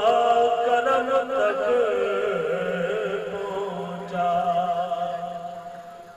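A man's solo devotional recitation sung through a PA microphone: long, wavering, melismatic held notes over a steady low hum. The phrase trails off and grows quieter toward the end.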